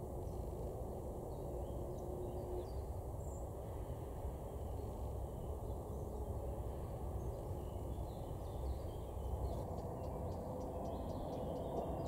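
Outdoor ambience: a steady low rumble with faint bird calls in the distance. From near ten seconds in, a quick run of faint high ticks, about four a second.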